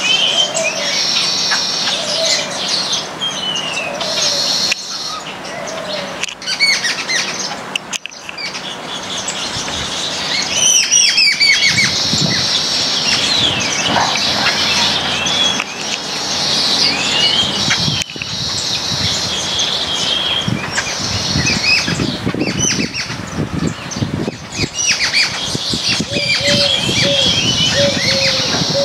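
A flock of baya weavers chattering and chirping continuously in high, busy calls, mixed with bursts of wing fluttering as birds move about. A lower note repeats a few times at the start and again near the end.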